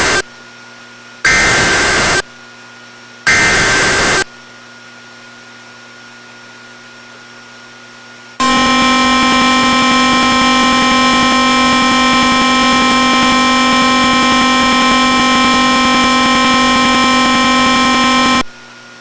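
Emergency Alert System tones. The SAME digital header plays as short screeching data bursts of about a second each: the end of one, then two more. After a few seconds of steady hiss, the loud, steady attention signal tone holds for about ten seconds and cuts off near the end. Together they herald a severe thunderstorm warning.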